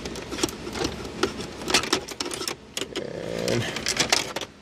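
Plastic shifter trim cover being pried up from a Fox-body Mustang's console with a pry tool: a run of irregular sharp clicks and snaps as its clips let go.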